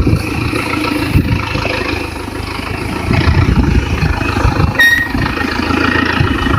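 Vehicle engine running with an irregular low rumble, and a short high beep just before five seconds in.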